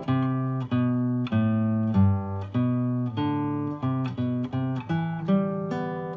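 Solo classical guitar played fingerstyle: a plucked melody over ringing bass notes, at a steady moderate pace of about two notes a second.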